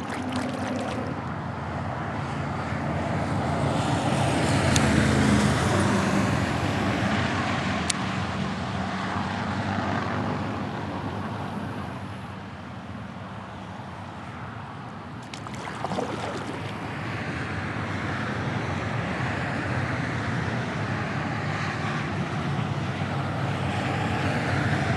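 Road noise from interstate traffic: a continuous rush of tyres and engines that swells and fades as vehicles pass, loudest about five seconds in and dipping for a few seconds around the middle.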